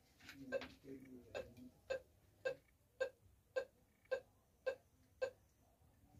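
Handheld long-range treasure locator with a telescopic antenna giving short, evenly spaced beeps, about two a second, which stop shortly after five seconds in.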